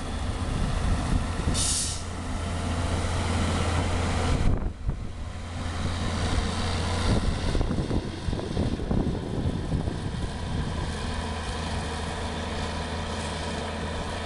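Caterpillar 140G motor grader's diesel engine running steadily as the grader pushes snow with a V-plow and drives off. A brief hiss about two seconds in, and the engine note changes abruptly about four and a half seconds in.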